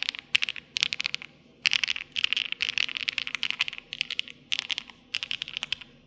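Typing on a Crush 80 mechanical keyboard: quick runs of keystroke clicks with short pauses between them, one pause just after the first second.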